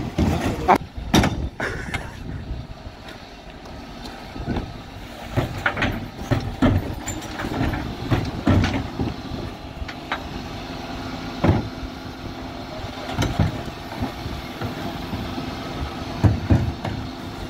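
Wheelie bins being lifted and tipped by the Terberg OmniDEL electric bin lifts on the back of a Dennis Elite+ refuse truck: repeated knocks, clatters and bangs of plastic bins against the lift and waste dropping into the hopper, over the truck's steady running hum.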